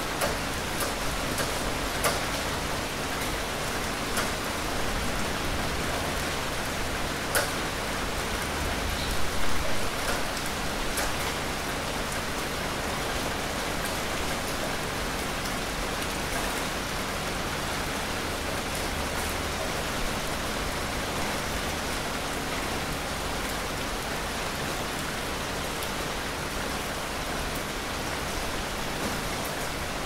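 Steady rain falling on a surface, an even hiss with now and then a sharper, louder drop. A brief low rumble swells and fades about a third of the way in.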